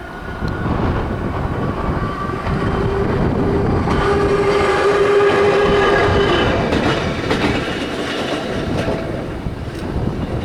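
Ohmi Railway electric train with old-style nose-suspended traction motors running past, the wheels and bogies rumbling. A few seconds in, a steady high tone rises over the rumble for several seconds, then dips slightly in pitch as the train goes by. Wheel clicks over the rail joints follow in the second half.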